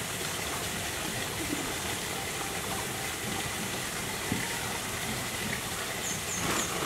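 A hand squishing and swirling a thin liquid marinade in a metal bowl: steady wet sloshing.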